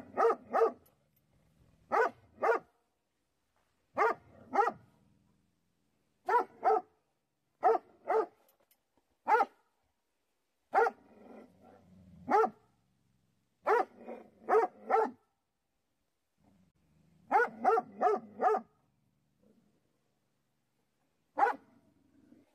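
Coyote barking, two to four quick barks at a time, a group about every two seconds, ending with a single bark.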